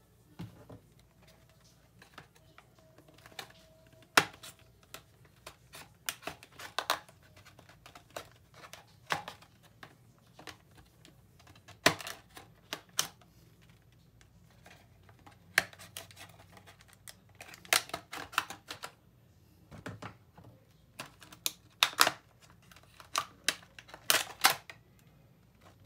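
Irregular clicks and crackles of an action-figure cardboard box and its plastic tray being handled and opened, coming in clusters with short quiet gaps.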